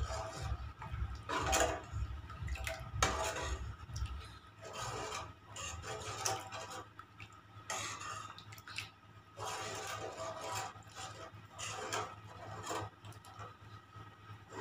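A spoon stirring and scraping around a kadhai of cooked greens, with repeated clinks and scrapes against the pan as a besan-and-milk mixture is stirred in a little at a time. A low rumble underneath stops about four seconds in.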